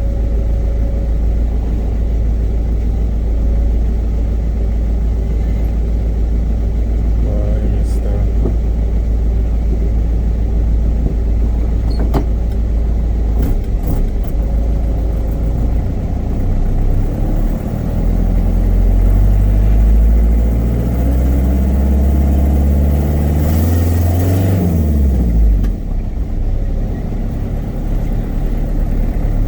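Hyundai truck's engine running under way, a steady low rumble that picks up and climbs in pitch about halfway through, then drops away near the end as the truck slows.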